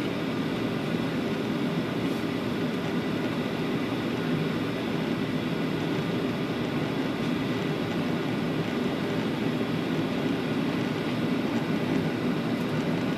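Steady cabin noise of a Boeing 737 in flight, heard from inside the cabin at a window seat: the even rush of the turbofan engines and airflow over the fuselage.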